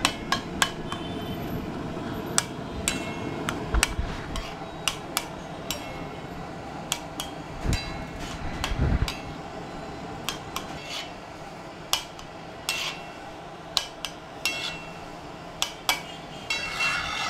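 Metal spatula clanking and scraping on a flat griddle as shredded cabbage is stir-fried in oil: irregular metallic strikes with a short ring, about two a second, and a few heavier thuds.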